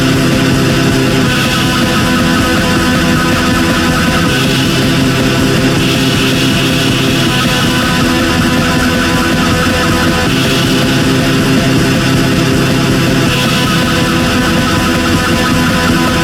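Loud, heavily distorted metal music: electric guitar over fast drumming, the riff shifting every few seconds.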